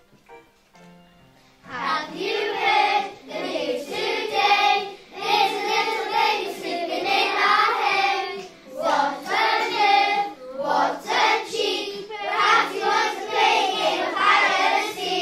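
A group of children singing a song together over a musical backing. The accompaniment plays quietly on its own for the first couple of seconds before the voices come in.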